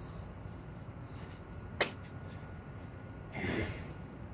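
A man breathing hard mid-burpee: short puffs of breath, a single sharp click a little under two seconds in, and a heavy exhale about three and a half seconds in as he comes up to standing.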